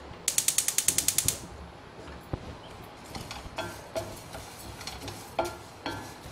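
A gas stove's burner igniter clicking rapidly, about a dozen clicks in one second near the start. After that, a wooden spatula scraping and tapping in a stainless steel pan as split moong dal is stirred while it dry-roasts.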